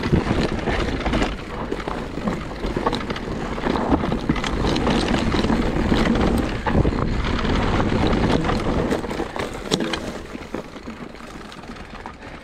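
Mountain bike ridden along a rough dirt trail: tyres on dirt and stones with the frame and chain rattling over bumps and wind on the microphone. It gets quieter over the last couple of seconds.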